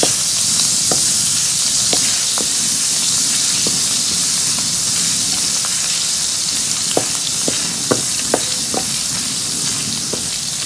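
Pieces of salted mackerel sizzling in hot oil in a wok, stirred with a wooden spatula: a steady hiss with occasional sharp pops, several clustered between about seven and nine seconds in. The fish is being fried until golden brown.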